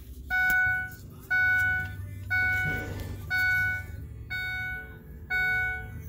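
Ford E-Series van's dashboard warning chime, sounding with the ignition key on: six even beeps, one a second, each a clear tone that fades a little before the next.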